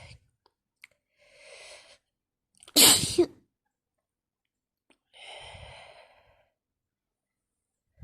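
A woman sneezes once, sharply and loudly, about three seconds in, during a sneezing fit. A short breath comes before the sneeze, and a longer breath follows it.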